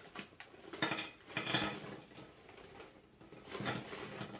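Small Hello Panda biscuits poured from their bag, pattering and clattering onto a hard serving plate in two spells, about a second in and again near the end.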